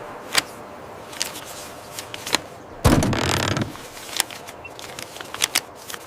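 Scattered clicks and knocks, with one louder scrape lasting under a second about three seconds in.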